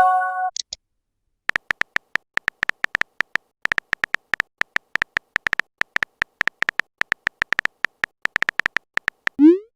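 Smartphone on-screen keyboard clicks from quick typing: runs of short, sharp ticks for several seconds. It opens with a brief message-alert chime and ends with a quick rising swoop like a message being sent.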